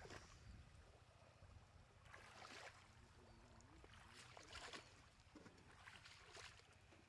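Faint splashing of feet wading through shallow muddy water: a few separate sloshing steps a second or two apart.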